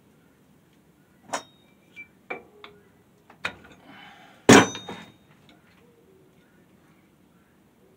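A scatter of separate metal clinks and knocks as parts of a homemade vertical centrifugal casting machine and steel tools on the bench are handled. The loudest knock comes about four and a half seconds in and rings briefly.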